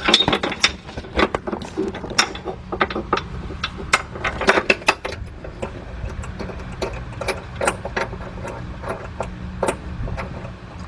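Hand ratchet clicking in short runs as an engine-mount bolt is turned, with metal tools tapping and clinking against each other. A steady low hum runs underneath.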